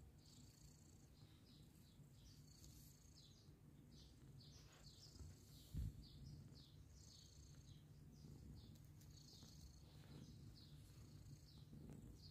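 Faint, steady purring from a mother cat nursing her kittens, with faint short high chirps scattered through and one soft thump about halfway through.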